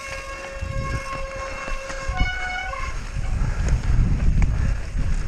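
Downhill mountain-bike run: rough, rumbling tyre and wind noise that grows stronger about a second in. Over it, a steady high tone holds for the first two seconds and then changes to a higher tone for about a second.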